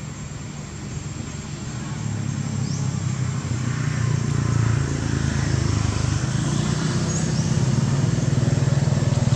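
A motor vehicle's engine running with a low, steady hum. It grows louder over the first few seconds and then holds steady.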